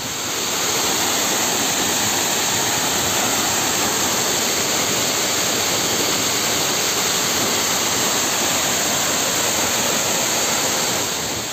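Waterfall pouring down a rock face and splashing onto the rocks below: a steady, dense rush of water.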